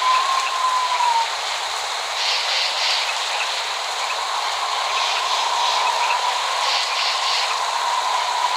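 Steady rain falling as an even hiss, with no thunder. A thin, steady whistling tone sits over it, fades out about a second in and comes back about halfway through.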